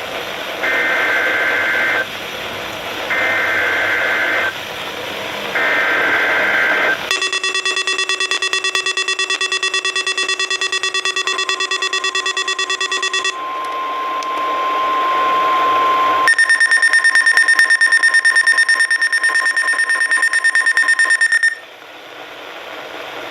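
NOAA Weather Radio SAME data header for a Required Weekly Test: three short bursts of warbling two-tone data over radio static, each about a second and a half long and a second apart. Then weather alert receivers sound their alarms: a rapid buzzy pulsing beep for about six seconds, a steady single tone for about three seconds, and then a higher pulsing beep until near the end.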